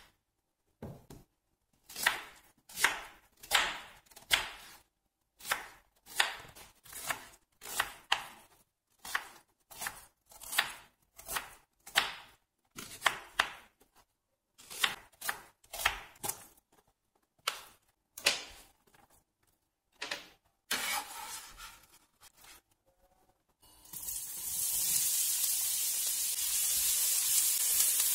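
A kitchen knife chops through an onion on a wooden cutting board, with sharp, evenly paced knocks of the blade on the board about one or two times a second. About three-quarters of the way through, a steady sizzle starts as the diced onion fries in hot olive oil in a stainless-steel pan.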